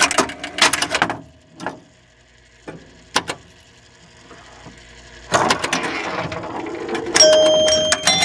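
Relays and score motor of a 1976 Williams Grand Prix electromechanical pinball machine clattering as a game is credited and the machine resets. There is a rapid run of clicks at first, then a few single clacks, then a second stretch of mechanical clatter about five seconds in. A bell-toned jingle comes in near the end.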